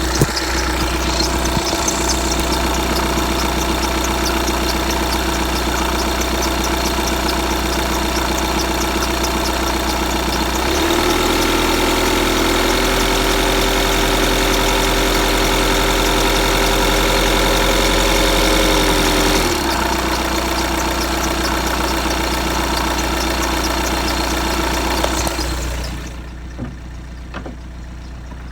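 2015 VW Tiguan 2.0 TDI four-cylinder diesel engine idling, with a steady squeak that the owner hears only while the engine is cold. For about eight seconds in the middle the engine note changes and gets a little louder. Near the end the sound drops away sharply.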